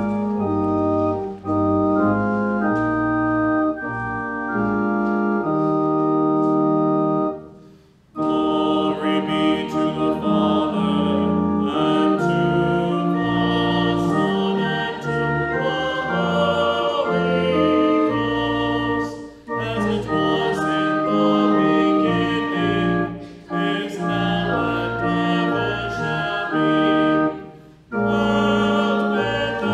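Church organ playing sustained chords as an introduction, then from about eight seconds in voices singing a hymn response with the organ, pausing briefly between phrases.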